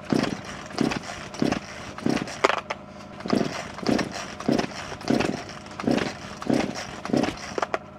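Recoil starter of a Stihl two-stroke chainsaw being pulled over and over in quick succession, about a dozen pulls in a row, each giving a short whirring crank. The cold saw has stood unused for a long time and does not catch.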